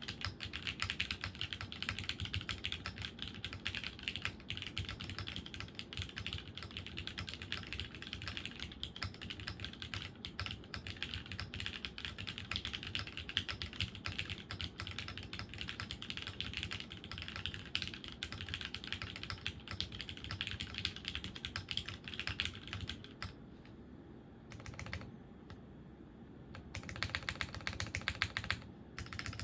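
Continuous fast typing on a custom Alice-layout mechanical keyboard: lubed vintage pre-tool Cherry MX Black linear switches in an aluminium plate, sandwich mount, with GMK keycaps. The key presses thin out to a quieter lull about three-quarters of the way through, then dense typing resumes.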